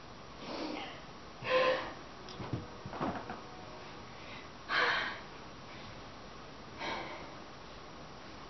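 A person's breathy vocal sounds: about five short gasps and exhalations a second or two apart, with a few soft knocks about three seconds in.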